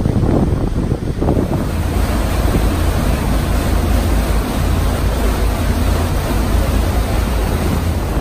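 Wind buffeting the microphone on the open deck of a fast-moving ferry, with water rushing in the boat's churned wake and a steady low rumble underneath.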